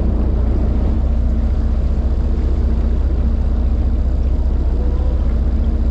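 Fishing boat's engine idling, a steady low drone with an even throb and a faint hum.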